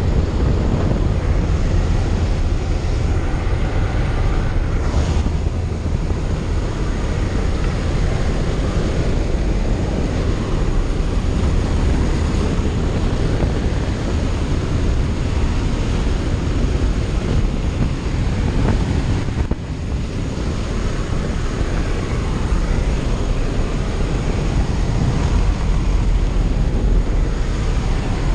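Loud, steady rush of slipstream and engine noise inside a light jump aircraft's cabin with the door open in flight, the wind buffeting the microphone. The level dips briefly about two-thirds of the way through.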